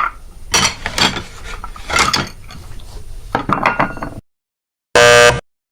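Dishes clattering and clinking against each other in several irregular bursts of sharp strikes. The clatter stops about four seconds in, and after a short gap there is a brief, bright ringing clash near the end.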